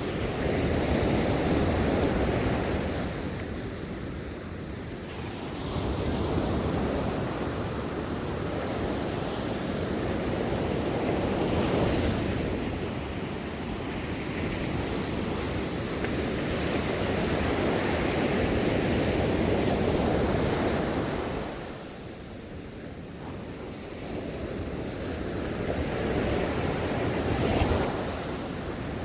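Ocean surf washing onto a shore, the rush of water swelling and falling back every few seconds, with quieter lulls between the bigger waves.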